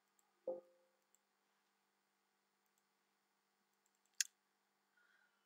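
Near silence broken by two faint computer mouse clicks: a short knock with a brief low ring about half a second in, and a sharp click just after four seconds.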